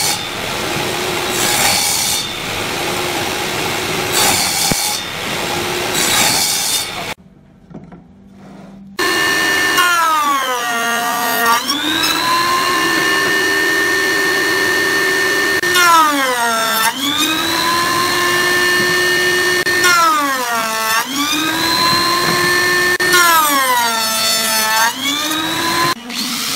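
Table saw cutting a row of shallow kerfs across a pine board, about four short cuts some two seconds apart. Then a router table running with a steady high whine whose pitch sags and recovers four times as pine pieces are pushed across the bit.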